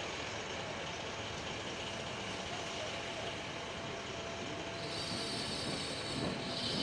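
Fire engine running steadily with a faint hum. A hiss comes in about five seconds in.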